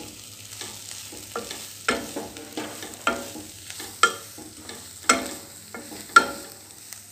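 A spatula stirring chopped chaya leaves and grated coconut in a frying pan over a faint sizzle. It knocks against the pan roughly once a second with short, ringing clanks.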